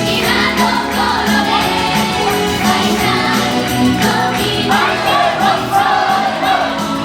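Pop song playing, with several voices singing together over a backing track with a steady beat.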